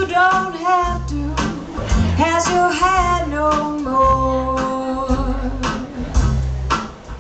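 A song: a voice singing over a plucked-string accompaniment with a regular bass line, one note held about four seconds in.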